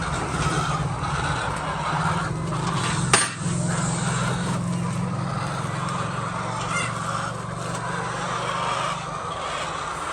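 Poultry-house ambience: a flock of chickens calling over a steady mechanical hum, with one sharp click about three seconds in.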